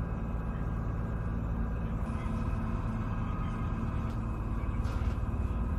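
Vehicle engine running with a steady low rumble, with a brief faint hiss about five seconds in.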